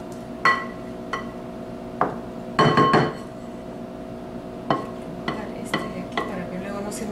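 Wooden spoon stirring sticky melted marshmallow in a glass mixing bowl, knocking against the glass in irregular clinks that ring briefly. A quick run of louder knocks comes about two and a half seconds in.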